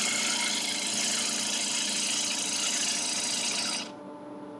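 Wood lathe running steadily, a motor hum with a hiss over it, that cuts off suddenly about four seconds in, leaving a quieter hum.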